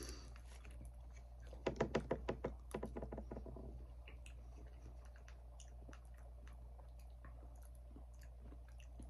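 Quiet eating sounds from a fork and a frozen-dinner tray and mouth: a quick run of clicks and scrapes lasting about two seconds, starting a second and a half in, then sparse soft clicks, over a low steady hum.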